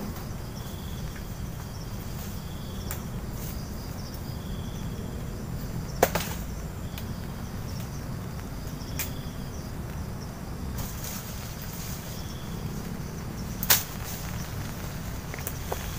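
Two sharp knocks, about six seconds in and near the end, as wooden shelter poles are handled and worked. Beneath them runs a steady low forest rumble, and a short high insect-like chirp repeats every second or two.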